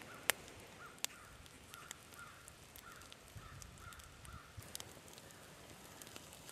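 A bird calling faintly in a quick run of short, repeated calls, about two a second, that fades out a little past the middle. Now and then a wood fire cracks with a sharp pop, the loudest a moment after the start.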